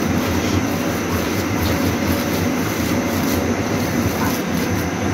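A steady mechanical rumble with a low hum runs throughout. Now and then come faint soft squelches of a hand kneading mashed potato and shredded chicken in a glass bowl.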